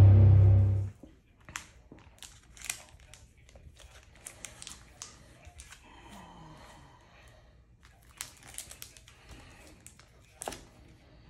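Intro music stops about a second in, then the plastic shrink wrap on a vinyl LP jacket crinkles and crackles in short, sharp bursts as hands rub and turn the sealed record over.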